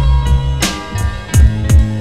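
Background music with a steady beat of low kick drums and hi-hat ticks under held chords.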